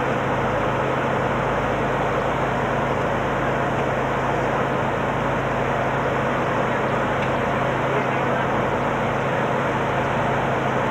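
Steady engine noise and low hum heard from inside a vehicle's cab, without change.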